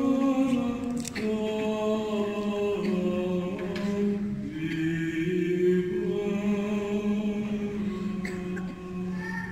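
Slow unaccompanied liturgical chant in low male voices: long held notes that step up and down in pitch, carrying in a large church.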